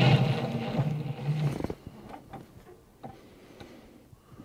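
Cordless power driver running a factory bolt down through the lockbox into the floor, its motor whirring in a few short trigger bursts for about the first second and a half, then stopping. Faint light ticks follow.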